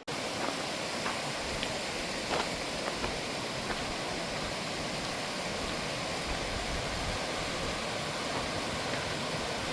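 A fast-flowing creek rushing steadily, with a few faint ticks over it.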